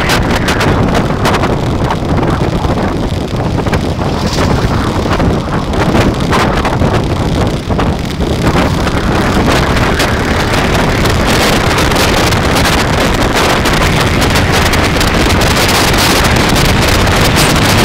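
Loud, steady wind rush on the microphone of a camera riding on a moving bike, with road and vehicle noise beneath it.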